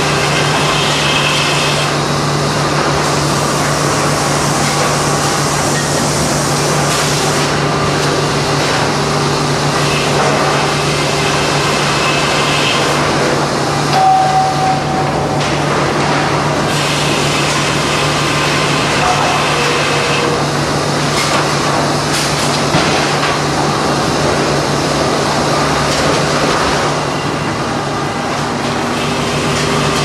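Sawmill machinery running: a large circular headsaw cutting a log on a moving carriage, over a constant low hum, with short whines from the blade coming and going.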